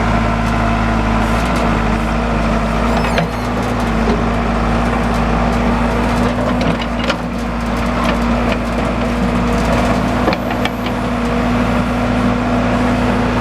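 Diesel engine of a JCB backhoe loader running steadily close by, with scattered clicks and knocks.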